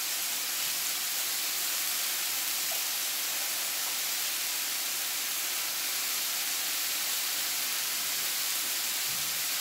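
Beef satay skewers sizzling steadily on a hot electric grill plate as margarine is brushed on: an even, unbroken frying hiss.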